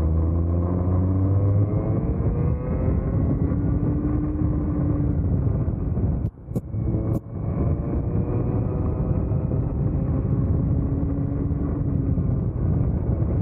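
Vortex Mini ROK 60cc two-stroke kart engine at full throttle, its pitch rising as the kart accelerates out of a corner, then rising again down the straight. The sound cuts out briefly twice about six to seven seconds in.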